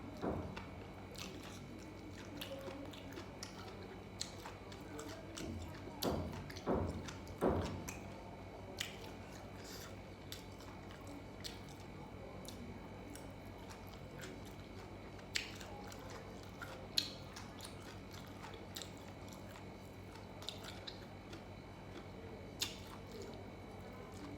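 A person chewing food close to the microphone: soft, wet mouth sounds and small clicks, with a few louder bites about six to seven and a half seconds in. A faint steady hum runs underneath.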